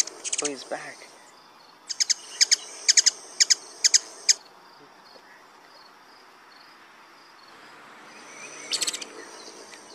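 Ruby-throated hummingbird chip calls: a quick run of about eight sharp, high chips over two and a half seconds, then a short burst of chips again near the end.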